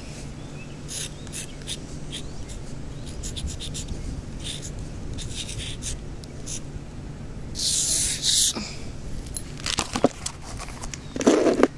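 Stick of chalk scratching on pavement in a run of short strokes as letters are written, with a longer, louder scrape about eight seconds in. Near the end come a few knocks and a loud rustle as the camera is handled and moved.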